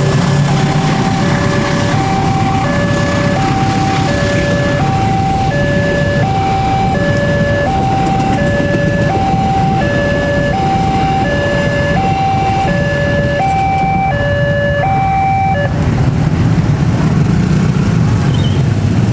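Level-crossing electronic warning alarm sounding a two-tone signal, a higher and a lower tone alternating about every two-thirds of a second, over the steady rumble of the KA Gaya Baru Malam passenger train passing. The alarm cuts off suddenly about 16 seconds in as the train clears, and the low engine noise of waiting motorcycles swells a little.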